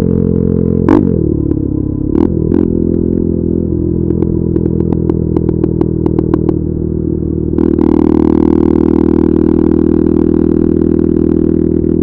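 A 2022 KTM RC 390's single-cylinder engine through an Akrapovic exhaust. About a second in a sharp pop sounds as the throttle closes, and the engine note falls away while the exhaust crackles and pops on the overrun for several seconds. At about seven and a half seconds the throttle opens again and the engine pulls with a steady, louder note.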